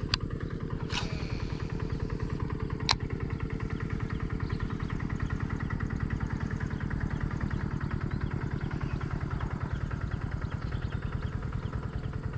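A small engine running steadily with an even, rapid chug. A few sharp clicks come in the first three seconds, the loudest about three seconds in.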